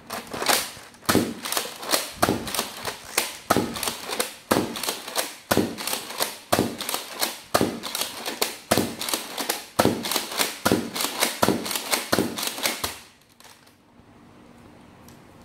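Nerf N-Strike Rampage pump-action foam-dart blaster being pumped and fired over and over in quick succession: a fast run of sharp plastic clacks, about two to three a second, that stops suddenly about thirteen seconds in.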